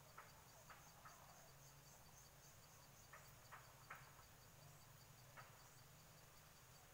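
Faint forest ambience: an insect chirping steadily in even pulses, with a handful of short, faint chips or ticks scattered through, a few clustered about halfway.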